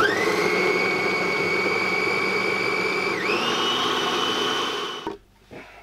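Small electric food processor switched on and blitzing ingredients into a sticky paste: its motor whines up at once and runs steadily, dips briefly in pitch about three seconds in, then settles a little higher, and winds down and stops about five seconds in.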